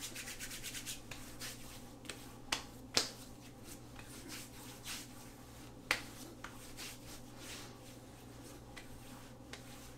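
Hands working aftershave balm onto the face, with wet, sticky rubbing and patting: a quick run of small clicks in the first second, then scattered sharper clicks, the loudest about two and a half, three and six seconds in.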